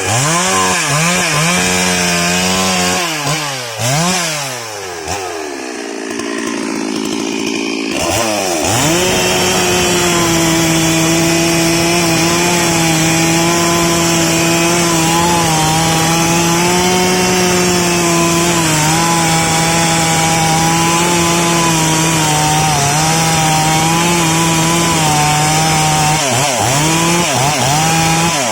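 STIHL MS 382 two-stroke chainsaw revved up and down in quick blips for the first several seconds. It is then held at full throttle for most of the time, its pitch sagging slightly as it cuts through sengon wood. Near the end it is blipped up and down again.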